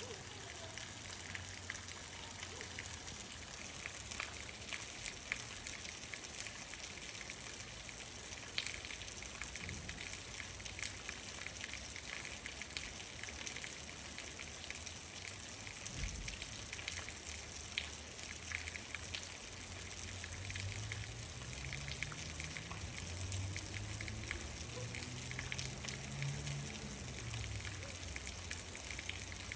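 Steady rain, with many separate drops ticking against a surface over a continuous hiss. In the second half a low rumble swells and then fades away.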